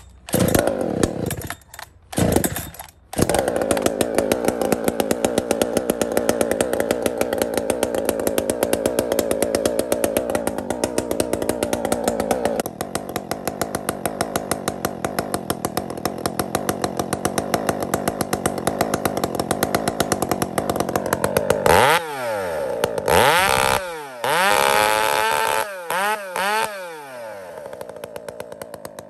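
Husqvarna 372 XP two-stroke chainsaw with a 28-inch bar and a Bear Claw-design muffler. It gives a few short bursts, then runs steadily at full throttle while bucking a log. Near the end it is revved up and down several times, then drops back to idle.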